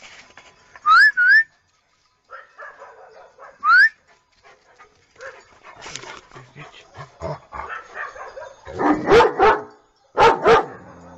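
Dog barking: three short high rising yelps early on, then a German Shepherd's deep barks, a rapid run of them about nine seconds in and two more near the end.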